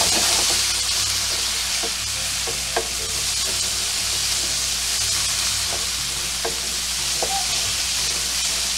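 Sliced onions and celery sizzling in a stainless steel skillet as they sweat and loosen the browned fond from the pan. A wooden spoon stirs and scrapes them, knocking lightly against the pan a few times.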